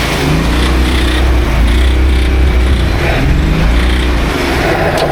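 Off-road 4x4's engine revving, its pitch rising and falling over and over.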